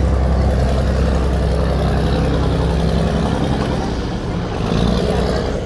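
A river ferry's engine running steadily with a low hum, under a wash of water and wind noise.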